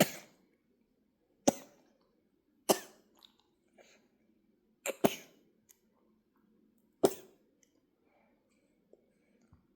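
A baby coughing in a series of about six short, sharp coughs a second or two apart, then quiet. He has been smiling while drinking formula, so the coughs come from milk going down the wrong way.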